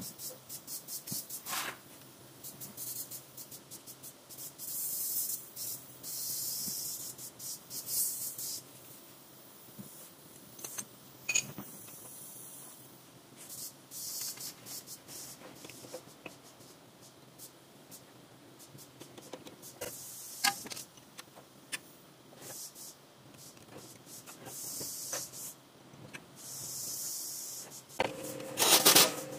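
Hand work on a disc-brake caliper: a threaded piston compressor tool being turned against the caliper piston, then the caliper being handled and seated over the rotor. The work gives clicks and metal knocks, several scraping, hissing passes lasting a second or two each, and louder clattering near the end.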